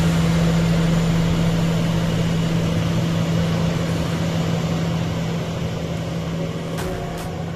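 Four-engine Airbus A340-300 jet airliner taxiing past, its turbofan engines running at a steady low hum with a rushing noise that slowly fades as it moves away. An electronic music beat comes in near the end.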